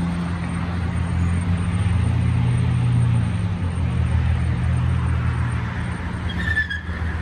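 Steady road traffic from a busy, slow-moving multi-lane highway, with a constant low hum. A brief high squeal comes near the end.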